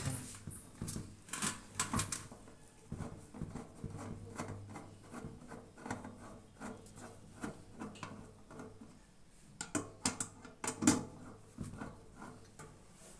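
Irregular light clicks and knocks of metal parts and panels being handled while a microwave oven is taken apart, with a few louder knocks about a second and a half in and again around eleven seconds, over a faint low hum.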